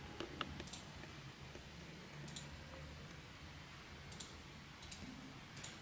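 Faint, scattered clicks, about half a dozen spread irregularly, over a quiet low room hum.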